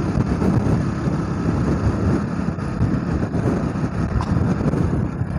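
Motorcycle riding along a road, its engine running under a steady rush of wind on the microphone.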